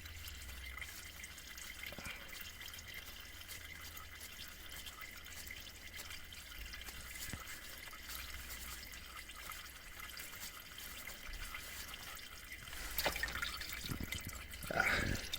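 Used gearbox oil trickling and dripping out of an Audi A6 C5 Multitronic CVT's drain hole into a 5-litre container, a faint, steady trickle.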